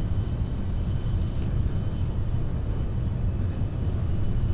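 Steady low rumble of a TGV high-speed train running at speed, heard from inside the passenger car.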